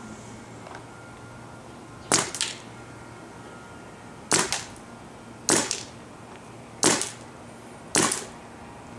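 Planet Eclipse Geo 2.1 paintball marker firing single shots on semi-automatic: several sharp pops a second or two apart, each with a short echo. The shots measure about 71 dB.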